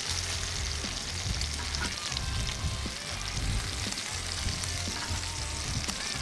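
Homemade bacon and hash browns sizzling steadily on a Blackstone flat-top griddle, with wind rumbling on the microphone.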